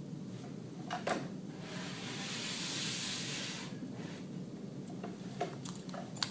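A large sheet of chart paper sliding against the board as it is moved, a smooth rustling hiss lasting about two seconds. A few light knocks and taps come before and after it.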